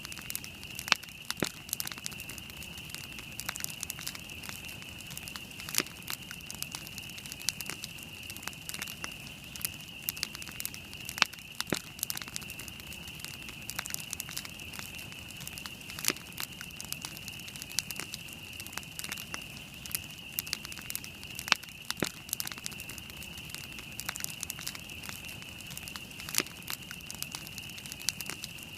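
Wood campfire burning, with irregular sharp crackles and pops over a soft background hiss. A steady high-pitched tone sits underneath.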